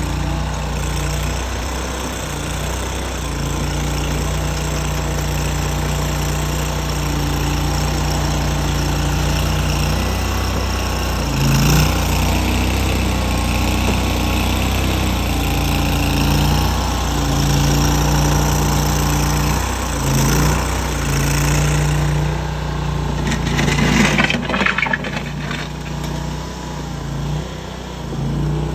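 Tracked mini skid steer's engine running steadily, its note stepping up and down several times as the machine works. A burst of clattering knocks and scraping comes a little before the end.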